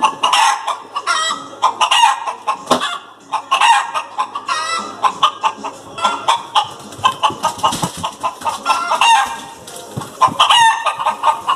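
A flock of chickens clucking, many short pitched calls overlapping without a break.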